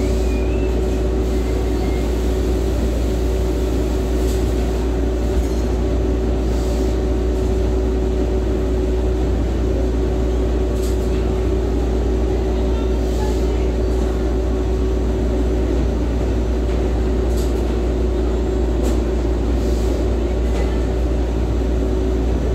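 Steady hum of running machinery: a constant low rumble with a single held tone over it, unchanging throughout, with a few faint light ticks now and then.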